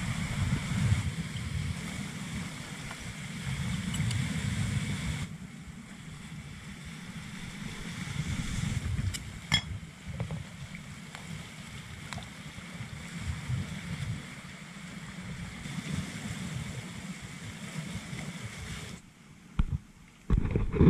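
Wind buffeting the microphone over the wash of sea waves on a rocky shore: a rumbling, uneven low noise, with a few sharp clicks about nine and a half seconds in. The noise drops sharply about five seconds in and again near the end.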